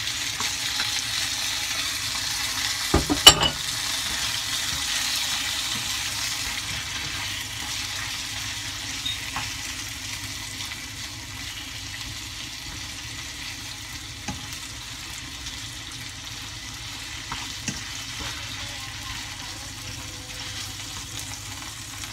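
Pork steaks and their marinade sizzling in a nonstick frying pan, stirred with a plastic slotted spatula. The sizzle is loudest in the first few seconds after the marinade goes in and settles lower; a sharp clatter comes about three seconds in, with a few light taps later.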